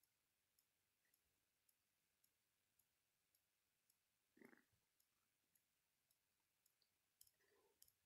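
Near silence, with faint, evenly spaced ticks nearly twice a second and one soft, short sound about four and a half seconds in.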